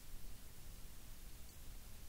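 Quiet room tone: a steady hiss with a low hum.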